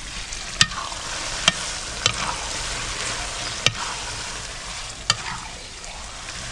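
Metal ladle stirring mashed eggplant bharta in a metal pan, with a steady sizzle of frying underneath. The ladle knocks sharply against the pan five times.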